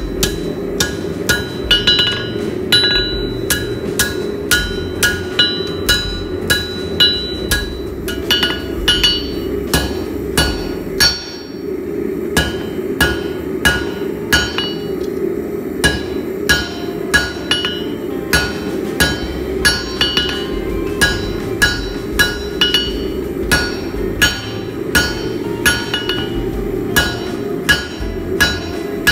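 Hand hammer blows on red-hot 1/4 by 1 1/4 inch flat stock at the anvil, about two strikes a second, each with a ringing note from the anvil and bar; the blows pause briefly about eleven seconds in. A steady rushing noise runs underneath.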